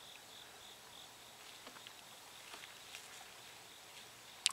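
Faint insects chirping in a steady high pulsing band, with a few soft ticks and one short sharp click near the end.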